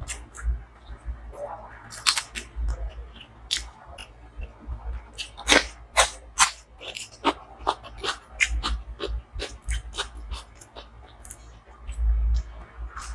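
Close-miked eating: wet chewing and mouth smacking with many irregular sharp clicks, the loudest a little past halfway.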